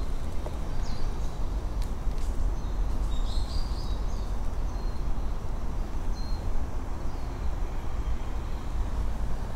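Outdoor ambience: a steady low rumble, with faint high bird chirps about three and a half seconds in.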